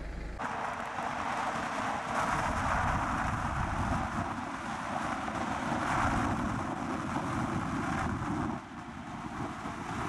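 Steady rushing road and wind noise from a moving car, swelling and easing a little, dipping briefly near the end.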